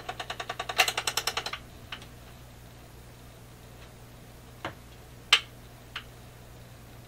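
Automatic record changer in a Canadian General Electric C701 console cycling after its auto button is pushed: a fast run of about a dozen mechanical clicks, then a few separate clicks, over a steady low hum.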